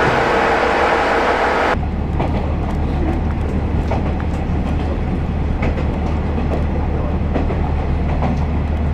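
Opens on the loud, steady running of a standing KiHa 40-series diesel railcar, with a held tone. About two seconds in the sound changes abruptly to the KiHa 40's cabin while it runs: a steady low diesel drone with scattered light clicks of the wheels over rail joints.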